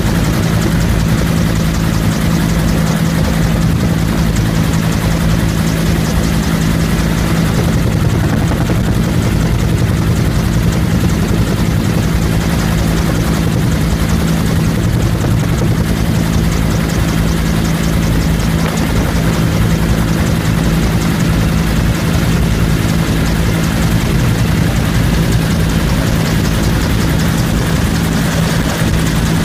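Bell UH-1 'Huey' helicopter in flight, heard from on board: its turbine engine and two-blade main rotor make a loud, steady drone with a strong low hum.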